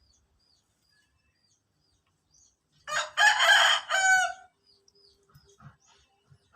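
A single rooster-like crow, about a second and a half long, ending in a falling note, followed by a few faint short chirps.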